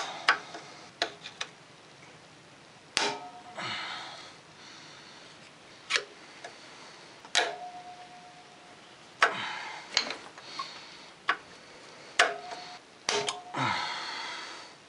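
Snap ring pliers working a snap ring out of a golf cart's steel axle tube: sharp metal clicks and clinks at irregular intervals of one to three seconds, a few of them ringing briefly.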